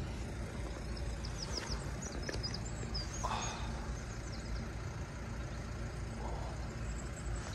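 A bird chirping a quick run of short, high notes between about one and four seconds in, over a steady low background rumble.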